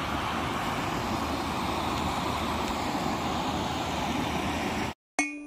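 Steady, even rushing noise with no distinct tones, which cuts off abruptly near the end.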